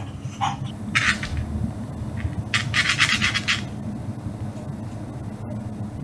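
Brief bursts of scratching and scraping: a short one about a second in, then a longer rapid rasping stretch around the middle, over a steady low hum.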